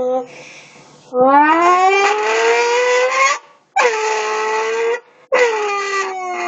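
A voice making car noises in long howling glides: one long rise in pitch, then two sounds that swoop down and level off, with short breaks between them.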